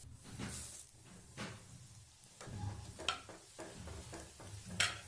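Thick poha (flattened rice) deep-frying with a sizzle in a steel mesh strainer set in hot oil. A metal spatula stirs it, with a few sharp scrapes and clinks against the strainer; the loudest comes near the end.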